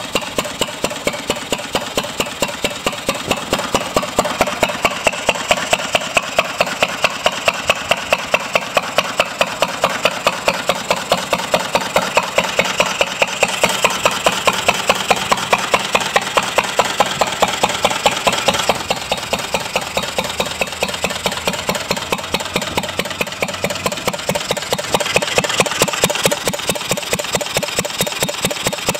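A 1952 Lister A hopper-cooled single-cylinder stationary engine running steadily, with an even, regular beat.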